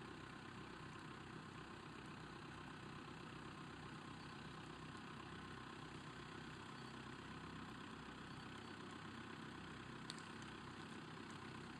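Classic Range Rover's engine running faintly and steadily at idle speed as the vehicle creeps slowly across a steep side slope, with a single sharp click about ten seconds in.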